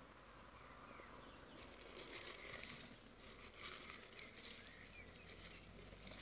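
Faint rustling and crinkling of dry, papery red onion skins being shaken out of a glass jar into a dye pot, in two spells: one from about one and a half seconds in, and one from about three and a half seconds in.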